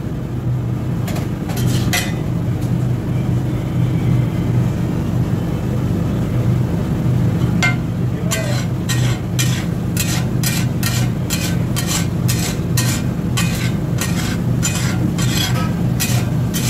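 Flat steel spatula striking and scraping on a large iron tawa as pav bhaji is mashed and spread, over a steady low hum. A few scattered strokes come early, then from about eight seconds in the strokes fall quickly and evenly, about three a second.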